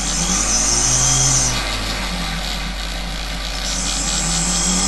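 Micromotor spinning a sharpening disk while a steel engraving graver is ground against it to finish its working edges: a steady running noise with a stronger grinding hiss in two passes, one lasting about a second and a half at the start and another from about four seconds in.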